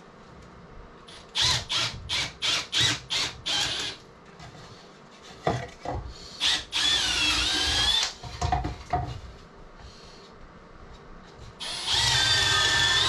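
Power drill run in short trigger bursts, about seven quick pulses, then two longer runs: a wavering one midway and a steady whine near the end, with a few knocks in between.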